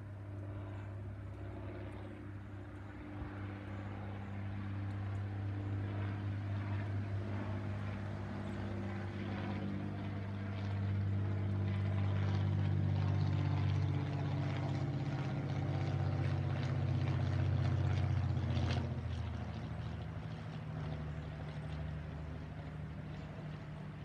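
Cessna 172 Skyhawk flying overhead, its piston engine and propeller droning. The drone builds to its loudest past the middle, then drops in pitch about three-quarters of the way through as the plane passes and eases off.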